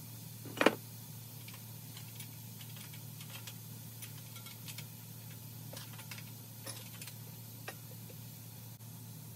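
Small irregular metal clicks and taps of a rim lock being fastened on a dirt-bike wheel, with one sharp knock about half a second in, over a steady low hum.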